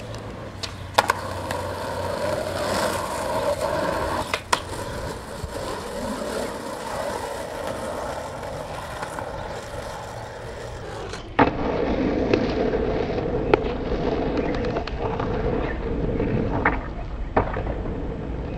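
Skateboard wheels rolling on asphalt, with several sharp clacks of the board popping and landing, its tail and trucks hitting the ground.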